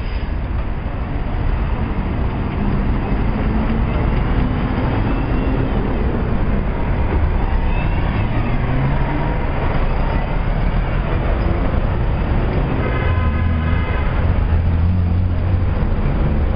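RTS transit bus diesel engine pulling away and accelerating close by, its pitch climbing, over street traffic. A brief pitched tone sounds about thirteen seconds in.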